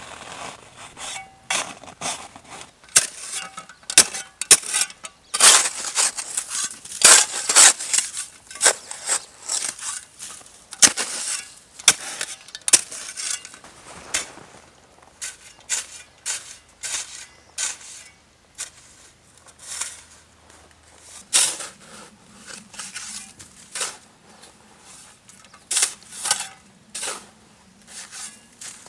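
Snow crunching and scraping in repeated, irregular strokes, about one or two a second, densest and loudest in the first half.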